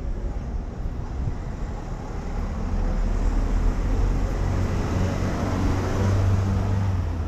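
A motor vehicle's low engine rumble, swelling from about three seconds in and loudest near the end as it passes close.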